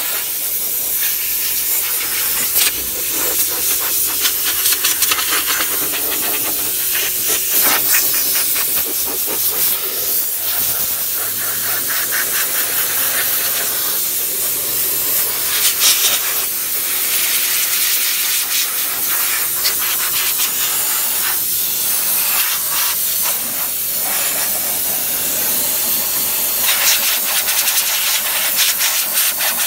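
Compressed-air blow gun hissing continuously, surging and easing as the nozzle is swept around, blowing rinse water off a car's engine bay to dry it after washing.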